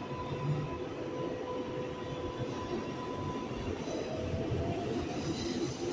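R142A subway train running on the rails, heard from inside the car: a steady rumble of wheels on track with a steady whine that fades about two thirds of the way through, then a fainter whine rising slightly in pitch.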